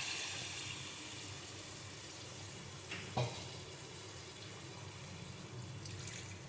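Water poured into a hot pan of fried brinjal in spiced masala, the frying sizzle dying down as the water goes in. A single short knock comes about three seconds in.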